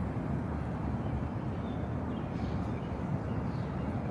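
Wind buffeting the microphone: a steady low rumbling rush, with a few faint short high chirps now and then.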